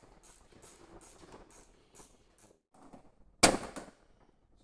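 A plastic trim clip on an Audi TT's front panel cover snaps into place with one loud, sharp snap about three and a half seconds in. Before it there is a faint, even ticking, about three ticks a second.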